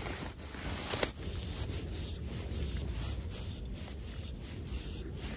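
Steady low rumbling noise on the microphone with scattered light rustles and one sharp click about a second in.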